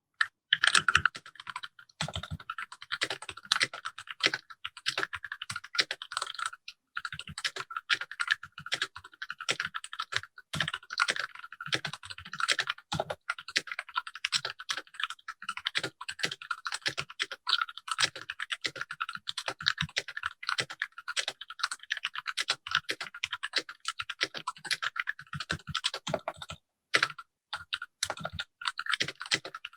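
Continuous typing on a Keychron K6 mechanical keyboard with Gateron Brown switches, an aluminium frame and ABS keycaps, sitting on a bare desk without a deskmat. The keystrokes clack rapidly and steadily, with a brief pause about a quarter of the way in and another near the end.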